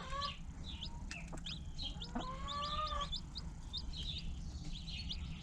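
Newly hatched chicks peeping over and over in short high chirps, with the mother hen giving one longer, lower call about two seconds in.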